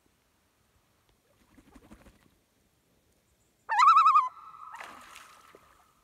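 Common loon calling: about two-thirds of the way in, a loud, rapidly wavering cry, the loon's tremolo, which runs into a steadier held note that fades out. The tremolo is the call of an agitated or alarmed loon.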